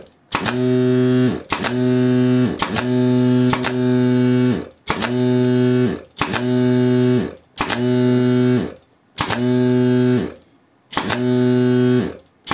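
Pneumatic brad gun driving 50 mm nails into softwood, repeated roughly once every second or so. After each shot a battery-powered Extol car compressor kicks on to top the pressure back up, runs for about a second, and cuts off, its motor dropping in pitch as it spins down.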